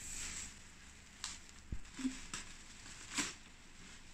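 Plastic wrapping and bubble wrap rustling and crinkling as they are pulled off and handled, with several short crackles and one soft low thump a little under two seconds in.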